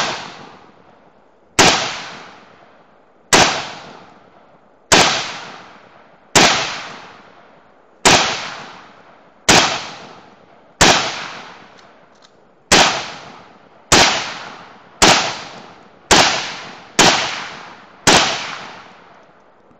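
AR-15 rifle in .223 firing fourteen single shots in slow semi-automatic fire, about one to one and a half seconds apart and coming a little faster near the end. Each shot trails off in a long echo.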